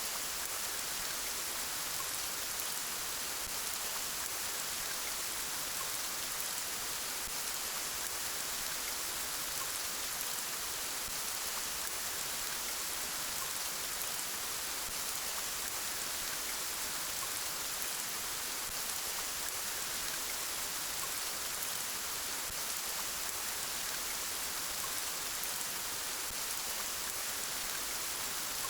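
Steady, gentle rain falling: an even hiss of many drops, strongest in the high range, with no single drops standing out.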